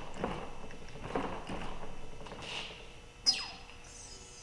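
A hand-pumped hydraulic knockout-punch pump driving an exhaust pipe expander: pumping strokes about a second apart, then a single sharp squeal falling steeply in pitch, the loudest sound, a little past the middle.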